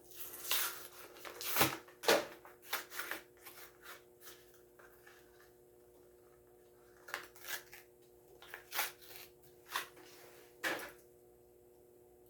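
A diecast toy car's blister-card packaging being torn open by hand: irregular scraping, tearing and crinkling of cardboard and plastic. The sound is busiest in the first four seconds, then comes as a few separate scrapes near the end.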